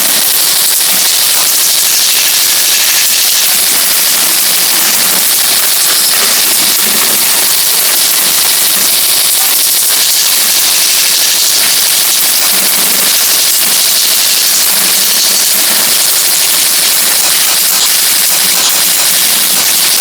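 Gas airsoft gun firing full auto in one long unbroken stream, shots running together into a steady loud rattle.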